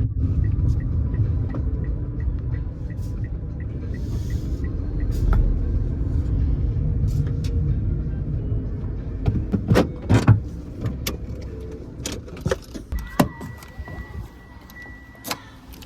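A car's low rumble, fading over the span, with a light regular ticking for the first few seconds; then several sharp clicks and a steady high beep near the end.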